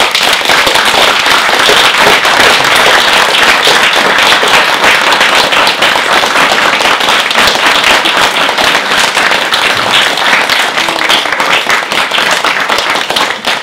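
Audience applauding: many hands clapping at once, starting suddenly and thinning out near the end.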